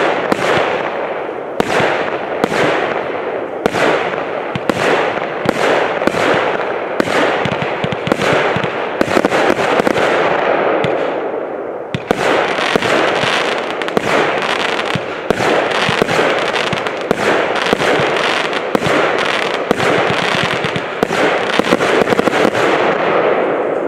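Engelsrud 'Yess' firework cake (battery) firing its shots in succession, about one a second, each launch bang followed by a noisy crackling burst that fills the gaps. The firing thins out shortly before halfway, resumes with a new run of shots just after, and fades near the end.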